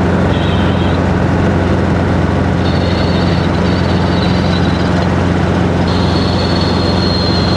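Robinson R22 Beta helicopter in flight, heard from inside the cabin: the steady drone of its rotor and piston engine. A thin high whine comes and goes above it.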